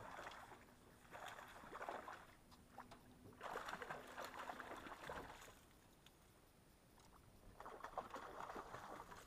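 Water splashing and slapping at the surface where a jigger pole's line and bait are worked across it, in four bursts, the longest lasting about two seconds in the middle.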